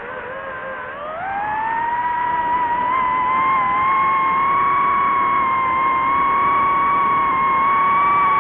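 DJI FPV drone's motors and propellers whining. The pitch rises sharply about a second in as the throttle goes up, then holds high and steady, and drops slightly near the end.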